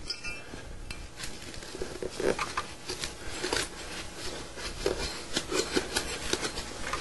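Irregular light metallic clicks and scrapes as a hand tool presses a carpet edge down into a metal carpet transition strip.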